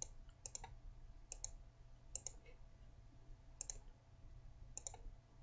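Faint clicks of a computer mouse button, mostly in quick pairs, spaced roughly a second apart, over a steady low hum.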